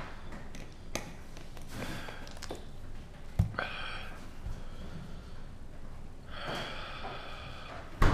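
A man breathing hard through the mouth, with several breathy gasps and blowing exhales, as he reacts to the burn of a superhot chili pepper. A sharp knock comes about three and a half seconds in.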